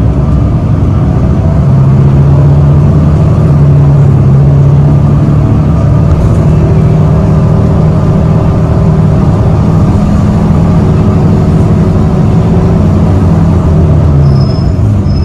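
City bus engine running and road noise heard from inside the moving bus, a loud low drone whose note steps up about a second and a half in and drops near the end.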